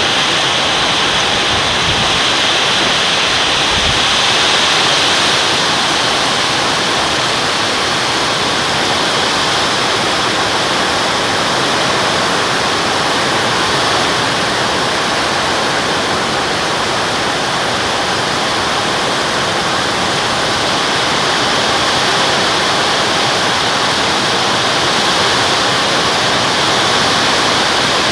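Heavy tropical downpour in strong wind: a loud, steady, dense hiss of rain.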